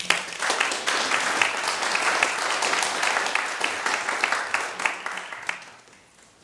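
Audience applauding at the end of a talk: many hands clapping, beginning abruptly and dying away over the last second or so.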